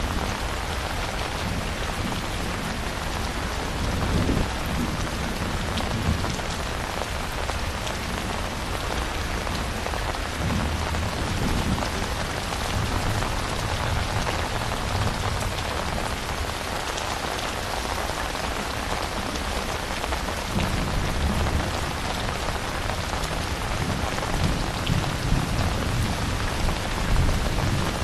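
Steady heavy rainfall with dense patter of raindrops, under low rolling thunder that swells and fades several times.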